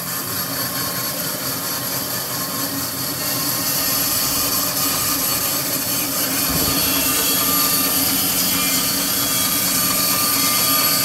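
A dust collector and a 20-inch Jet bandsaw running with a steady whir. About four seconds in it gets louder as the carbide-tipped Laguna Resaw King blade starts cutting into a dogwood log.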